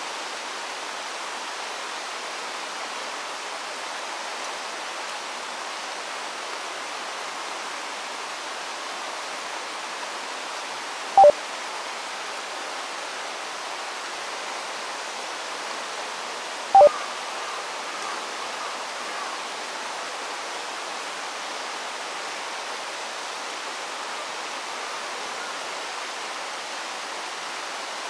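The steady rush of a clear river flowing close by. It is broken twice, about 11 and 17 seconds in, by a short loud beep-like blip.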